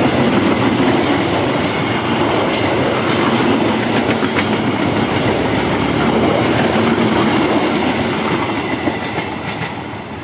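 Long-distance passenger train's coaches rolling past close by, wheels running on the rails. The noise fades near the end as the last coach goes by.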